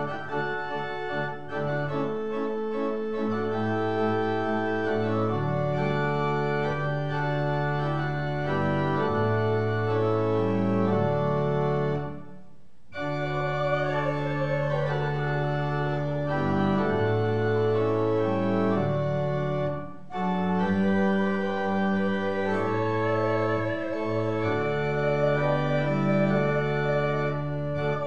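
Church pipe organ playing a slow piece in held chords that change every second or two, with two short breaks between phrases. A wavering higher melody line sounds over the chords in the second half.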